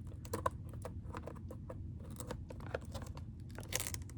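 Trading card pack and cards being handled: a run of light clicks, rustles and crinkles, with a longer stretch of wrapper crinkling or tearing near the end.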